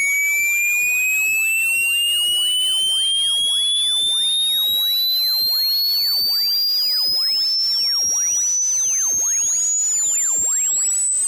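Loud electronic test tone sweeping slowly and steadily upward in pitch, shrill throughout, with a mesh of fainter whistling tones sliding up and down around it.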